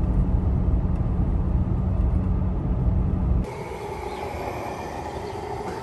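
Steady low road rumble inside a moving pickup's cab. About three and a half seconds in it cuts off sharply to a quieter, steady hum at a gas pump while the truck is being refuelled.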